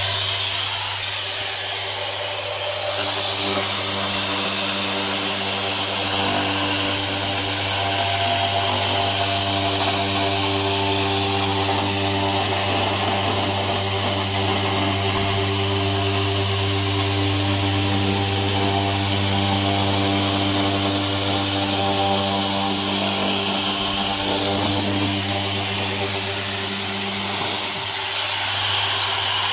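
Makita random-orbit (eccentric) electric sander running with a steady motor hum while it sands a painted wooden sash window frame smooth.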